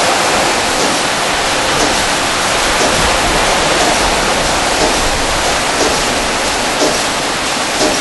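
Automatic rollover car wash working over a car: a steady hiss of water spray mixed with the rotating brushes sweeping the body.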